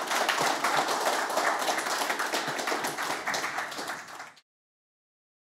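Audience applauding, many hands clapping. The applause fades and cuts off about four seconds in.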